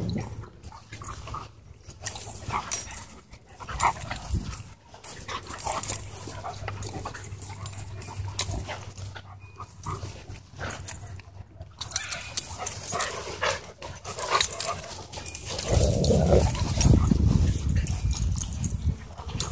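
Several dogs play-fighting, with scuffling and short dog vocal sounds scattered throughout. A louder low rumble comes in during the last few seconds.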